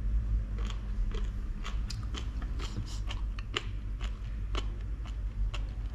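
A person chewing a mouthful of jellyfish close to the microphone, with crisp, irregular crunches a few times a second.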